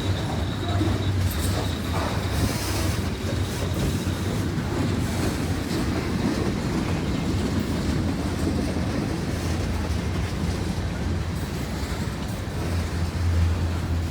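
Long Norfolk Southern freight train's cars rolling past, a steady loud rumble of steel wheels on rail, with a thin high wheel squeal in the first second or so.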